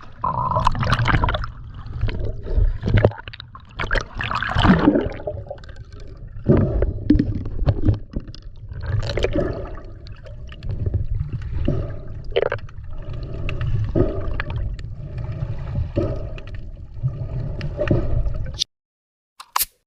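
Sea water sloshing and gurgling, over a low rumble, with scattered knocks. It cuts off suddenly near the end.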